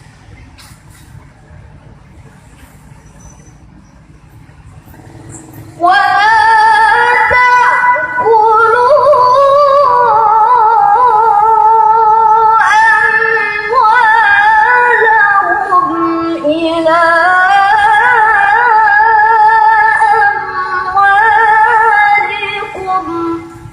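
A girl's voice in melodic Quran recitation (qiroah), singing long, ornamented phrases whose held notes waver and glide in pitch, with brief pauses for breath. It starts about six seconds in, after a stretch of faint low background hum.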